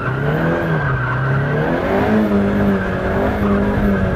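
KTM X-Bow engine revving up and down with its tyres squealing through a drift.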